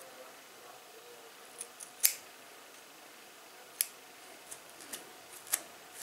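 Steel hair-cutting scissors snipping off the ends of a braid of afro hair: about half a dozen short, sharp snips, the loudest about two seconds in.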